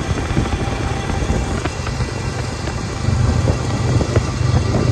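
A vehicle's low, steady rumble that gets louder about three seconds in.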